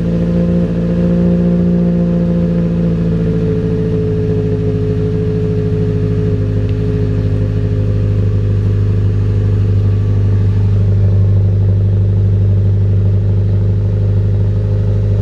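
Ford Ranger pickup's engine idling just after start-up, heard right at the exhaust tailpipe. It is a steady, even exhaust note, with the idle easing down slightly in the first few seconds.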